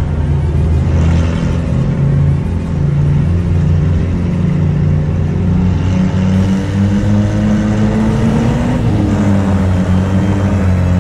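Toyota 22R four-cylinder engine of a pickup racing on ice, heard from inside the cab, its pitch rising and falling with the throttle through the laps.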